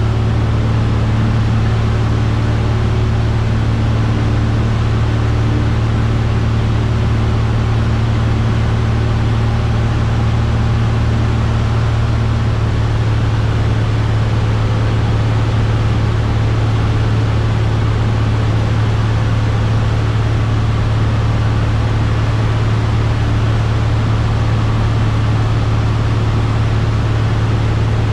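Cessna 172F's six-cylinder Continental O-300 engine and propeller droning steadily in flight, heard inside the cabin with a steady hiss of airflow over it. A faint higher tone in the drone drops out about halfway through.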